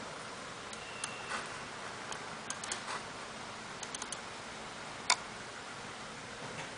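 Computer mouse-button clicks: scattered single clicks and quick pairs like double-clicks, with one sharper click about five seconds in, over a steady faint hiss.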